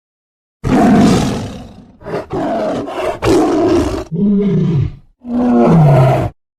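A large wild animal roaring: five loud roars in quick succession, the last two sliding down in pitch.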